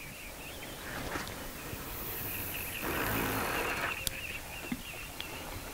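Feeder rod being cast: the line hisses off the reel as the feeder flies out, followed by a rougher rushing noise lasting about a second and then a sharp click.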